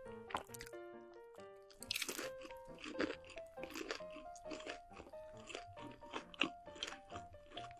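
Close-miked crunching of crispy sauced fried chicken being bitten and chewed, an irregular run of crunches with the sharpest about two, three and six seconds in. Soft background music plays underneath.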